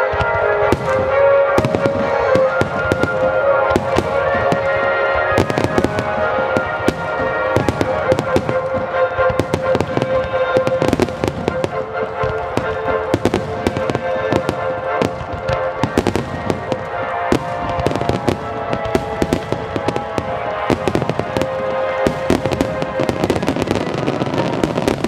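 A dense barrage of aerial fireworks bursting and crackling, many reports a second with no let-up. Music with long held notes plays underneath.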